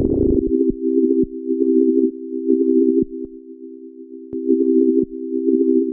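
A held note from the Xfer Serum software synthesizer with an LFO pulsing it. The LFO rate is turned down from a fast flutter to slow swells about once a second.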